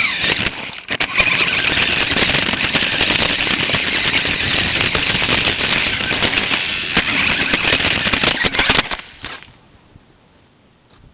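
Battery-powered RC car driving fast, heard close up: a loud rattling of wheels over the ground with many sharp clicks and a whine from the electric motor. It cuts off suddenly about nine seconds in.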